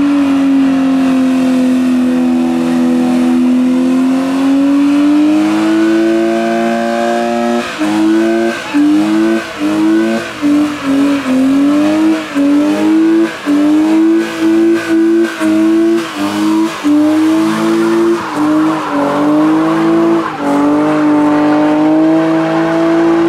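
BMW E36 3 Series engine held at high revs in a burnout, its rear tyres spinning on the tarmac. After several seconds the revs drop and climb again over and over, about once or twice a second, as the throttle is pumped, then hold steady once more near the end.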